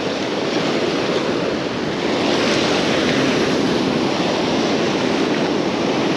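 Ocean surf washing steadily onto the beach, swelling about two seconds in as a wave breaks, with wind on the microphone.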